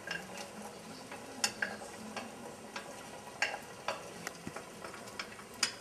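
Wooden spoon scraping diced carrots and tomato off a plate into a pot, with scattered light clicks and taps as pieces drop in, over faint sizzling from the meat and onions browning in the pot.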